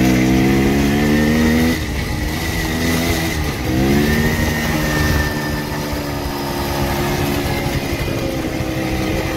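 The 125 cc two-stroke engine of a 2003 Minsk motorcycle is being ridden under acceleration. Its revs climb, break off about two seconds in as it changes up a gear, and climb again before it settles into steady running.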